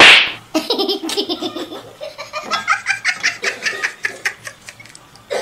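Laughter: a person laughing heartily in a long run of repeated bursts, starting suddenly and loudly.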